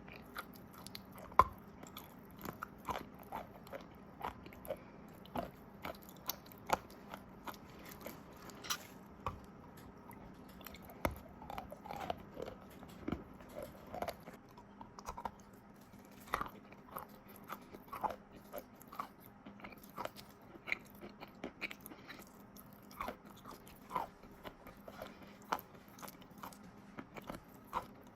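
Close-up crunching and chewing of crunchy chalk coated in wet clay paste. Irregular sharp crunches come a few times a second, with one loud bite about a second and a half in.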